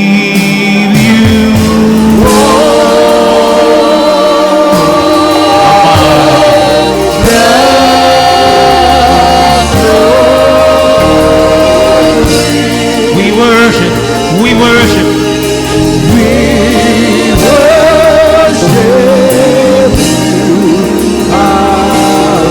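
A gospel choir singing a praise song, with a lead voice and instrumental backing that has a steady beat and bass.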